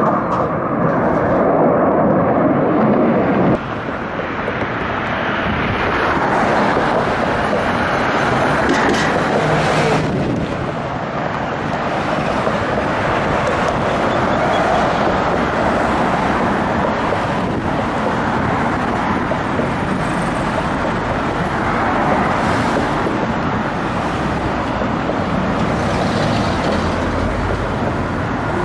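Jet noise from F/A-18 Hornet fighters flying past, a loud steady rush that swells and fades several times, with abrupt jumps in level about 3.5 and 10 seconds in.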